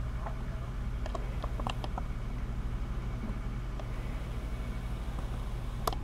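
Steady low rumble of idling truck engines, muffled through a window, with a few faint clicks about a second in and one sharper click near the end.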